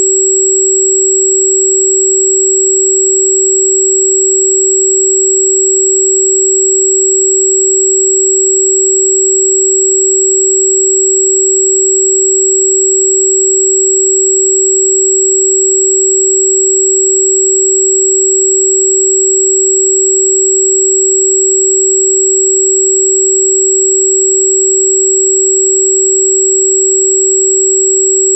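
Steady electronic sine tone at about 382.6 Hz, one pure unbroken pitch held at constant loudness with no change. It is the 'healing frequency' listed for wolfberry root bark (Di Gu Pi).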